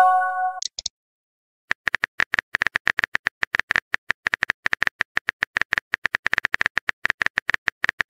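A short chat-app message chime right at the start, then, from about two seconds in, a fast, uneven run of keyboard-tap clicks: the texting app's typing sound effect.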